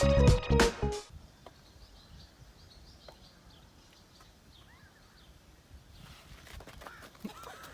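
Music stops about a second in, leaving a quiet outdoor background with scattered faint bird chirps that grow busier near the end.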